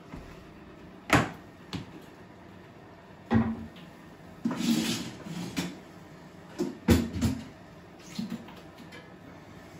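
Several sharp knocks and clunks of bathroom objects being picked up and set down on a toilet lid and tiled floor, with a short scraping shuffle about halfway through and a few lighter taps near the end.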